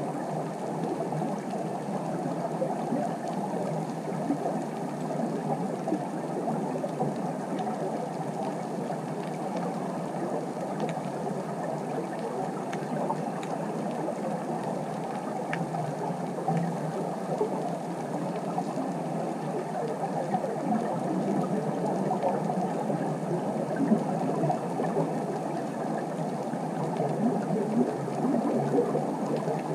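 Underwater ambience as picked up by the camera: a steady, muffled crackling hiss, growing a little louder with a few sharper peaks near the end.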